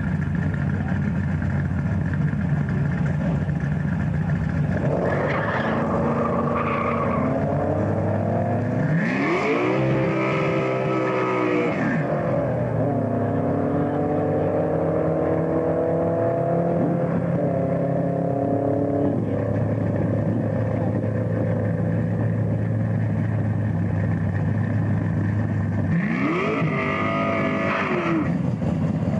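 Drag-racing cars' engines revving hard and pulling away, the pitch climbing in steps as they accelerate off the line, with a steady idle drone in between. Another engine revs up sharply near the end.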